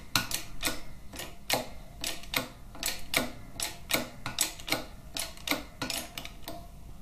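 A press pushing the cam bearing out of a Harley-Davidson Twin Cam 88 cam plate: a run of sharp metallic clicks, about four a second, that stops near the end.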